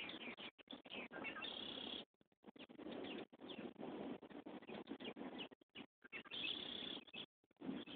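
Small birds chirping and tweeting over a steady rushing hiss, with the sound cutting out abruptly for brief moments several times.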